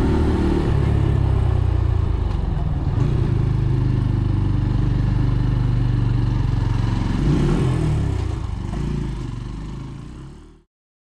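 Brixton Cromwell 125's single-cylinder engine running on the move, its pitch dropping about a second in and changing again around seven seconds. The sound fades and then cuts off abruptly near the end.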